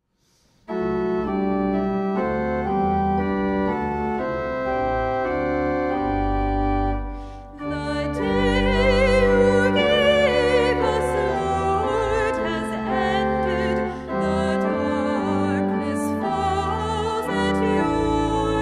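Church organ begins playing sustained chords about a second in. After a short break near the middle, a woman's solo voice joins and sings with vibrato over the organ.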